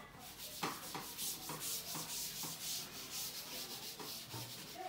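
A surface being wiped by hand with a wipe: repeated rubbing strokes, about two a second, with light knocks.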